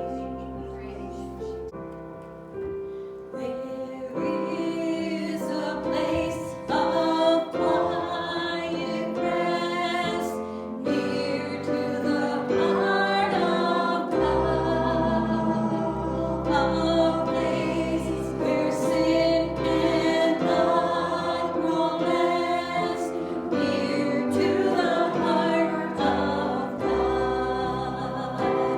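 A group of voices singing a gospel hymn with musical accompaniment and held bass notes underneath, quieter at first and fuller from about four seconds in.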